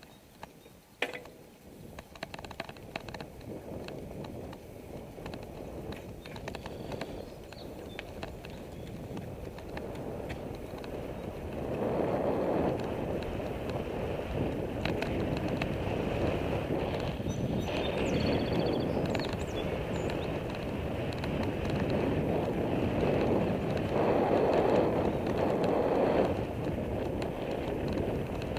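Bicycle riding on a paved road: wind rushing over the camera microphone together with tyre noise, growing louder as speed picks up, with a few light clicks near the start.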